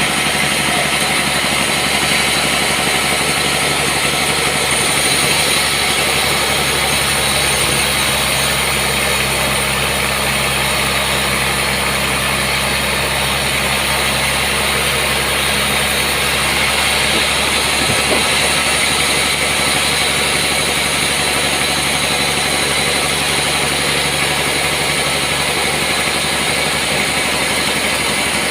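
Sawmill machinery running steadily: a constant, loud machine hum with a noisy hiss over it, with one small knock partway through.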